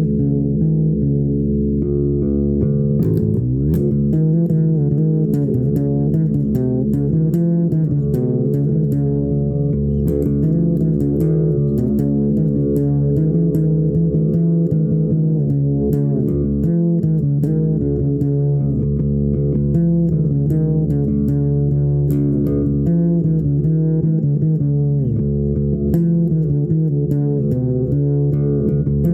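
Instrumental music on plucked strings, guitar and bass: low notes held steady underneath while plucked notes change above, with a sliding phrase a few seconds in.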